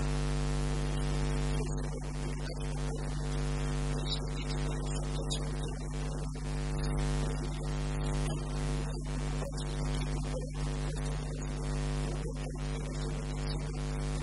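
Steady electrical mains hum, a low buzz with several steady overtones, over a constant hiss.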